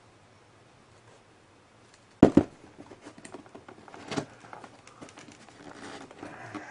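A sealed hard-drive retail box being forced open by hand: a sharp double crack about two seconds in, then small crackles and rustles of the packaging being handled.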